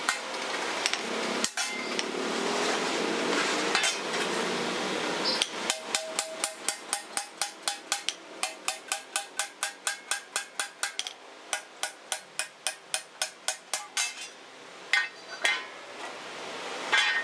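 Small hand hammer striking a steel hoe blade on a steel anvil block. After a few scattered knocks comes a long, steady run of quick ringing metallic taps, about three or four a second, and then a few heavier single blows near the end.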